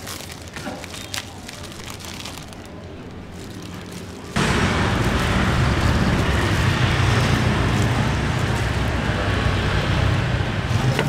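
A few light clicks and rustles of banana being handled in a plastic bag, then about four seconds in a sudden switch to a loud, steady sizzle of banana fritters deep-frying in hot oil, with a low burner rumble beneath.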